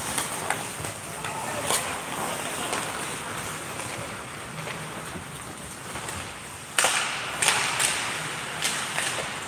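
Ice hockey play in an indoor rink: a steady hiss of skates on the ice, broken by sharp clacks and knocks of sticks on the puck and the puck against the boards. The loudest crack comes about seven seconds in, followed by a few more.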